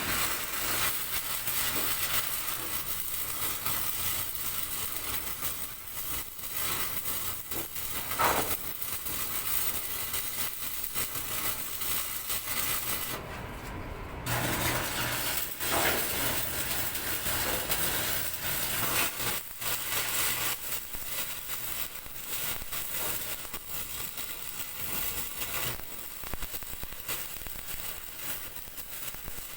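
Electric arc welding: a steady crackling hiss over a low hum. The crackle breaks off for about a second near the middle.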